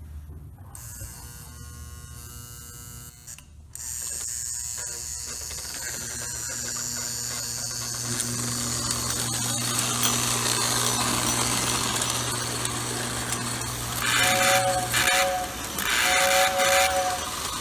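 Lionel electric toy train running on its track, its motor whirring steadily and growing louder. Near the end the train's whistle sounds a few short two-note blasts.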